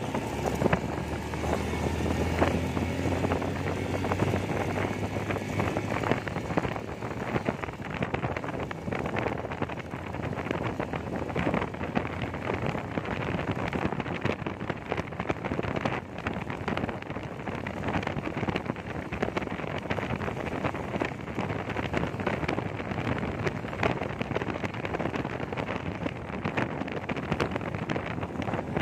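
Wind buffeting the microphone over the engine and road noise of a vehicle riding along a highway, with a low engine hum clearest in the first few seconds.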